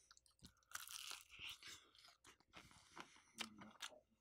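Someone biting and chewing Popeyes fried chicken, the crisp breading crunching. There is a dense crackly crunch about a second in, then scattered smaller crunches and clicks.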